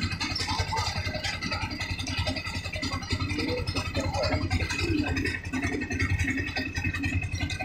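Motorcycle engines idling with an even low pulse, over a loaded freight train rolling past; faint voices of people waiting mix in.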